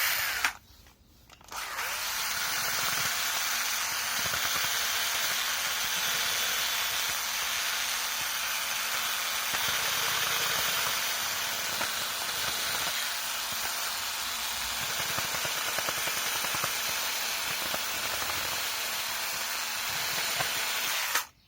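Battery drill running with its spinning bit pulled across the cut end of a piece of wood to smooth it, a steady grinding hiss. It breaks off briefly about a second in and stops just before the end.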